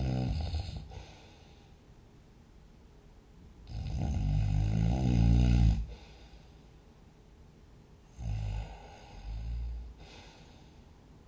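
A sleeping person snoring. One snore is ending at the start, a long snore begins just under four seconds in and stops about two seconds later, and two short snores follow close together near the end.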